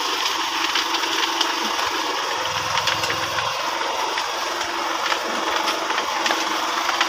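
Motorcycle engine running with its raised rear wheel spinning while maize cobs are pressed against the tyre, the tread stripping the kernels off with a steady rattling scrape and many small clicks of kernels flying off.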